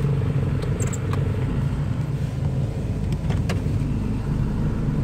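2002 Ford Escort's four-cylinder engine idling steadily, heard from inside the cabin, with a few light clicks.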